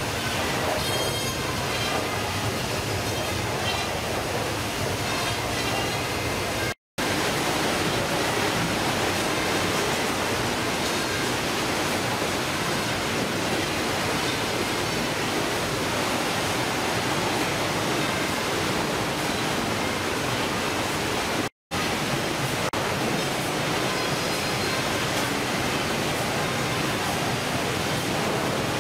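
Steady din of fish-processing machinery and running water on a factory trawler's processing deck, an even noise with no distinct events. It cuts out briefly twice.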